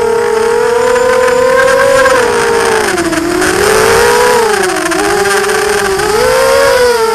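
Brushless motors and 5-inch propellers of a 250-size FPV quadcopter (EMAX MT2204 2300KV motors), heard from the camera on board: a loud, steady buzzing whine. Its pitch sags twice, about three seconds in and again near five seconds, then climbs back as the throttle changes.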